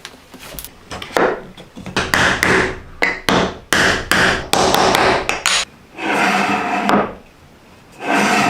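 Hand-tool work on wood: a quick run of knocks and short scraping strokes, then two longer rasping strokes near the end.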